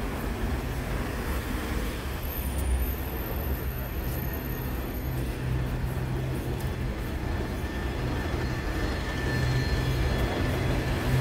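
City street traffic, with a heavy vehicle's engine running low and steady close by, getting a little louder near the end.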